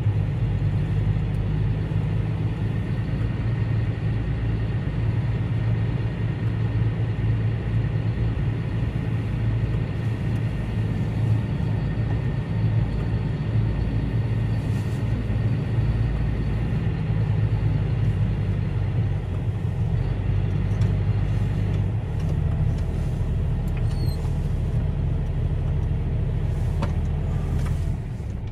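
Tractor engine running steadily, heard from inside the cab: a low drone whose note drops a little about twenty seconds in, then falls away just before the end.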